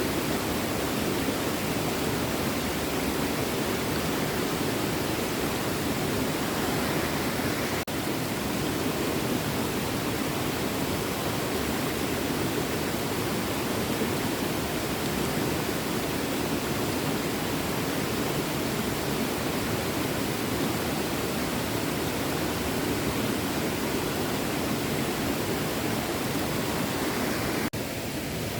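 Small stream running, a steady rush of water, with a brief dip about eight seconds in and a slight drop in level near the end.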